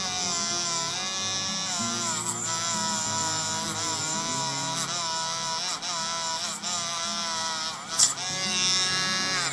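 Background music: a held melody whose notes slide up and down, over steady low chords.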